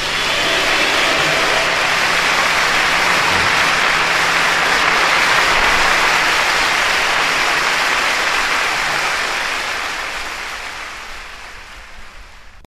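Audience applauding, a dense even clatter of many hands that starts abruptly as the music ends and fades out over the last few seconds.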